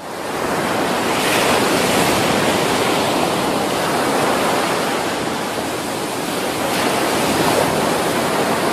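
Ocean surf: a dense, steady rush of breaking waves that cuts in suddenly at the start.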